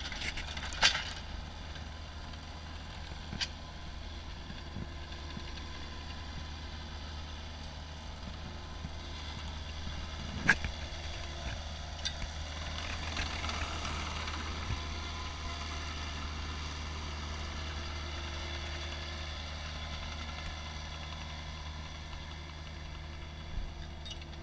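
Stand-on mini track loader (mini skid steer) engine running steadily as the tracked machine drives over grass, with a few sharp clanks about a second in, at about three and a half seconds and near the ten-second mark.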